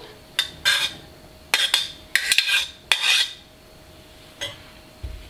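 Metal spoon clinking and scraping against a stainless steel pot and a ceramic bowl as boiled corn kernels are spooned out: a run of clinks and scrapes over the first three seconds, then a single faint clink near the end.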